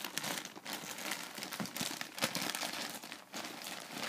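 Plastic courier satchel crinkling and rustling in a continuous run of sharp crackles as hands rummage inside it and pull at its contents.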